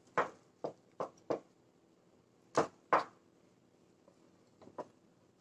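Wooden spatula stirring and scraping thick rava kesari in a nonstick frying pan: a run of about eight short scrapes and knocks, the loudest two about halfway through.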